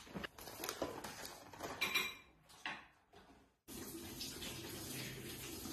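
Kitchen items being handled and set down on a stone countertop: a series of separate clicks and knocks, including a plastic clamshell of cherry tomatoes being put down. After a short break, a steady rushing noise follows.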